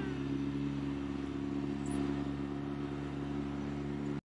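Small outboard motor on an inflatable dinghy running steadily under way at a constant speed. It cuts off abruptly near the end.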